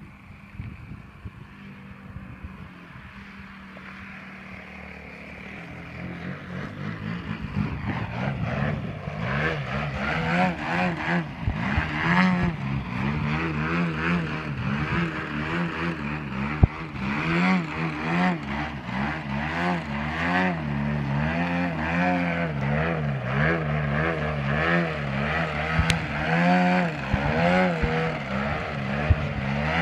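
Large gas-engined RC aerobatic plane (Aeroplus 111-inch Edge, GP123 engine with rear-exit canister mufflers and a 27x11 carbon propeller) running in a nose-up hover. The engine and propeller note keeps rising and falling with constant throttle changes. It is faint at first and much louder from about eight seconds in.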